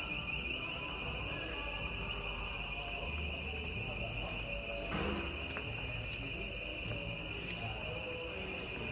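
Shop-floor room tone: a steady high-pitched hiss over a low hum, with faint distant voices and a brief click about five seconds in.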